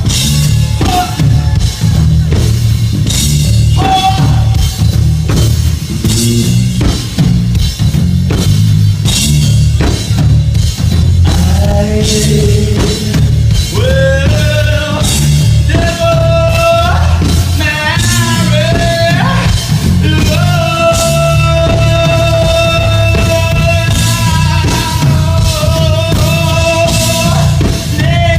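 Live band music: heavy drums and bass with regular drum hits. About twelve seconds in, a melodic line of long held notes comes in over them.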